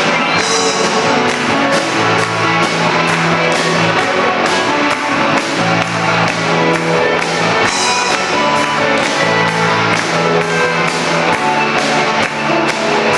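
Live band playing an upbeat song, loud: guitars over sustained bass notes, with drums keeping a steady beat.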